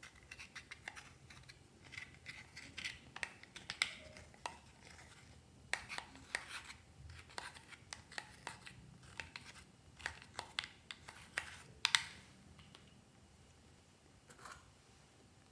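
A small metal tool scraping and digging pressed eyeshadow out of a plastic palette: irregular scratchy clicks and scrapes as the cakes of powder crack and crumble. The scraping stops a few seconds before the end.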